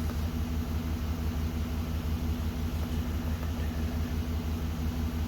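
2011 Chevy Silverado's 5.3-litre V8 idling with a steady, even low rumble. The cylinder 7 misfire is cured after repair of the chewed injector and coil wiring; the mechanic finds no misfires and calls it purring like a kitten.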